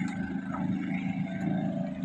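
An engine running steadily, a low even hum with no change in speed.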